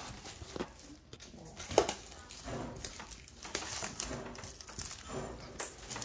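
Plastic shrink wrap crinkling as it is pulled and peeled off a cardboard box, in irregular crackles and rustles.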